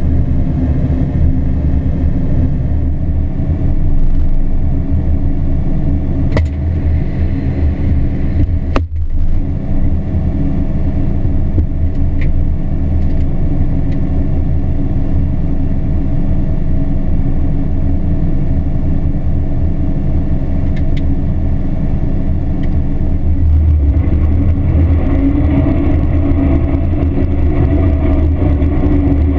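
John Deere combine harvester running steadily under load, a continuous loud drone of engine and threshing machinery, with a brief dropout about nine seconds in.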